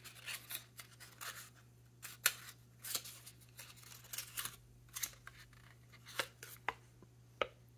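Folded paper leaflet being unfolded and handled: a run of short, irregular paper crackles and rustles.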